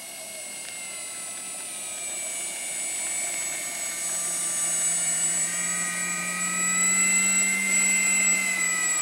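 Electric motor and propeller of a Parkzone F4U-1A Corsair RC park flyer whining in flight, steadily growing louder over several seconds. The whine drops sharply in pitch at the very end.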